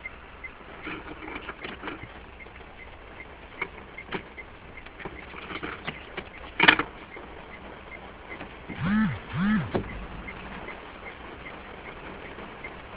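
Rain pattering steadily, with scattered sharp clicks and one loud click about two-thirds of the way through. Near the end come two short, low calls that rise and fall in pitch.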